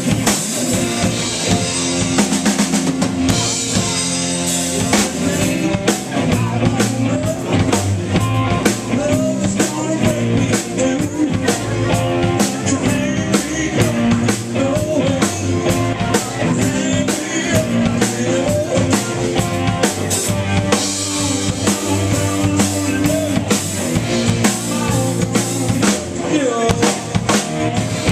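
Live band playing a song: a drum kit keeping a steady beat under electric guitar, bass and keyboards, recorded loud in the room.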